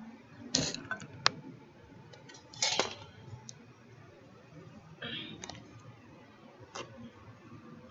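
Scattered sharp clicks and clinks of tableware being handled at a table, with a short rustle about five seconds in.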